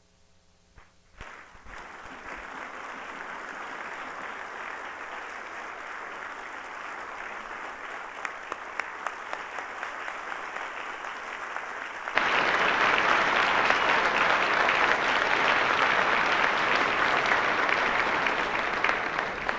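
Audience applauding. The clapping starts about a second in and becomes much louder about twelve seconds in.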